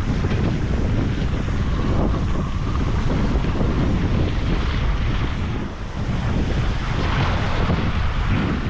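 Wind buffeting the microphone over small waves washing in across a rocky shoreline.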